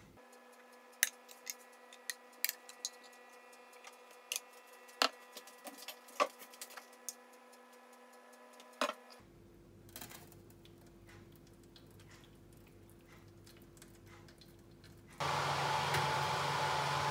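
Scattered light clicks and taps over a faint steady hum. About fifteen seconds in, the steady whir of a fan oven running with its door open starts suddenly.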